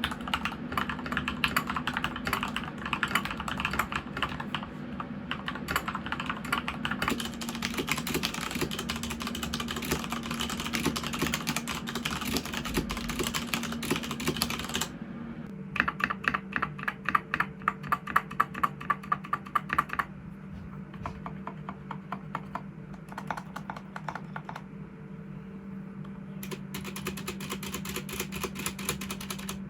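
Typing on an Epomaker GK96 mechanical keyboard with Gateron Pro Milky Yellow linear switches and XDA-profile keycaps, its case damped with a silicone layer. Fast continuous typing for about fifteen seconds, then a run of separate, louder keystrokes at a slower even pace, then lighter typing again.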